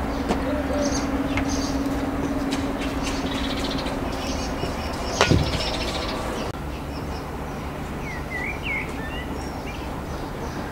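Small knife clicking as it cuts through fresh green bean pods, over a steady low hum, with one loud knock about five seconds in. Later a bird chirps a few quick rising notes.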